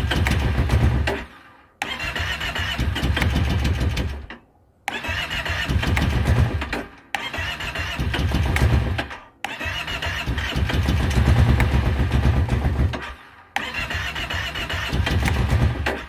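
Kawasaki Brute Force 650i's V-twin engine being cranked by its electric starter in repeated bursts of two to four seconds with short pauses between. It turns over but does not catch: a no-start.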